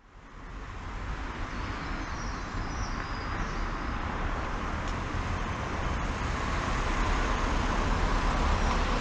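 Street traffic noise: a steady hiss of tyres on a wet road, growing a little louder towards the end.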